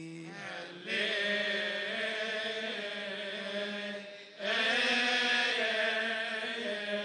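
Group of male Coptic deacons chanting a liturgical hymn together, holding long drawn-out notes. They pause briefly for breath about four seconds in, then carry on.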